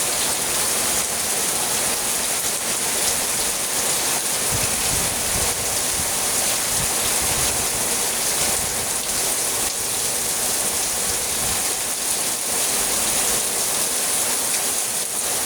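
Heavy rain pouring steadily, with gusts of strong wind adding a low rumble in the middle and near the end.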